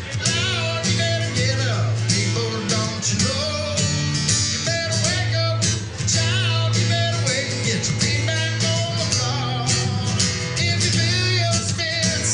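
A live song: a man singing with a strummed acoustic guitar and steady low bass notes underneath.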